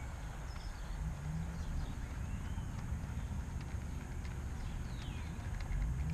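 1:76 scale model train, a Class 25 diesel hauling vans, running along garden track: a steady low rumble with the wheels ticking rhythmically over the rail joints.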